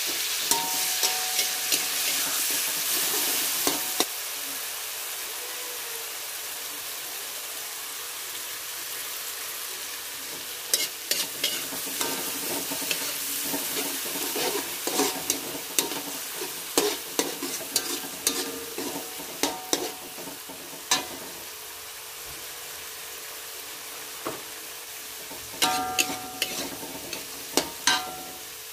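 Ground spice paste sizzling in hot oil in a metal wok, stirred with a metal spatula. The sizzle is louder for the first four seconds, then softer. From about ten seconds in, the spatula scrapes and clicks against the wok in quick runs, some strikes ringing briefly, with a last flurry near the end.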